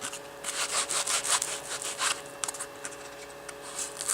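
Nylon multi-tool sheath being handled, with fabric rubbing and scratching in a quick series of short strokes that thin out about halfway through.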